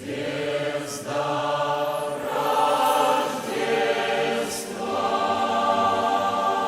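Church choir singing a Christmas song in long, held chords, with sung 's'-like consonants about a second in and again about four and a half seconds in.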